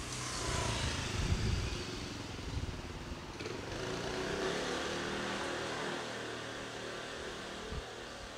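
Motor vehicles passing close by on a city street: one goes by about a second in with its pitch falling, and another builds up and passes around the middle.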